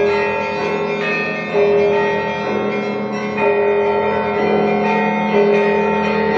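Orthodox church bells pealing: several bells of different pitch struck in turn, a fresh stroke every second and a half to two seconds, each note ringing on under the next.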